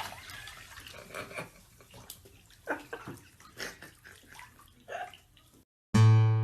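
Water sloshing and splashing faintly in a bathtub, with a few soft splashes. A loud musical note starts near the end.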